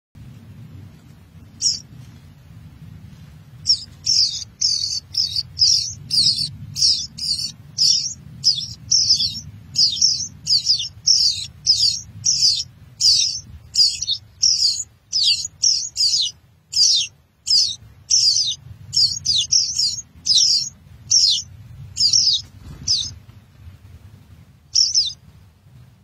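Songbird nestlings begging in a ground nest: a long run of high-pitched cheeping calls, about two a second, starting a few seconds in and stopping a few seconds before the end, with single calls before and after the run.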